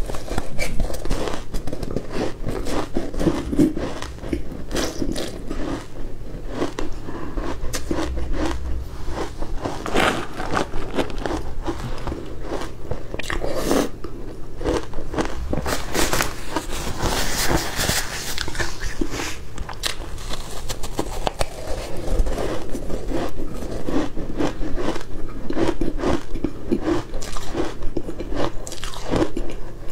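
Crushed ice dusted with matcha powder crunching between teeth as it is bitten off a spoon and chewed, a dense, continuous run of crunches picked up close by a clip-on microphone.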